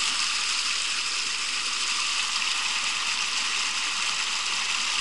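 A small river's water babbling steadily over rocks in a shallow rapid.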